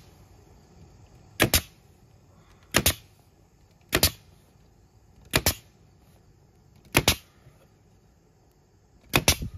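Pneumatic nail gun firing nails to fasten a wooden frame rail to plywood: six sharp double cracks, one about every second and a half.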